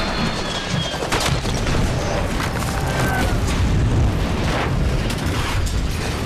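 Action-film battle soundtrack: a loud, dense din of explosions and gunfire, with several sharp blasts standing out through it.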